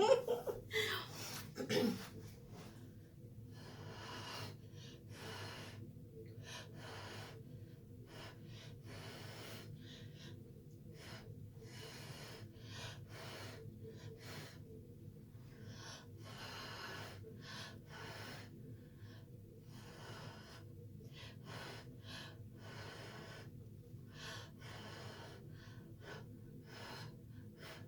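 A long series of short puffs of breath as acrylic paint is blown across a canvas by mouth, spreading and mixing the poured colours.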